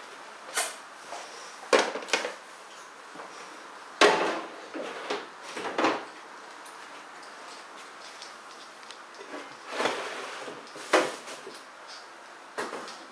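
Irregular knocks and clatter of household containers being handled, set down and slid at a refrigerator, about eight separate knocks, the loudest about four seconds in and again near eleven seconds.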